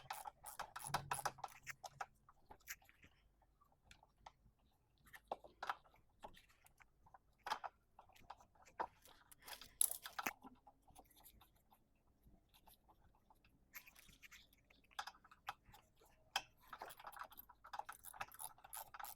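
Hands handling small mower engine parts: scattered clicks, taps and light rattles at irregular times, busiest near the start and again near the end.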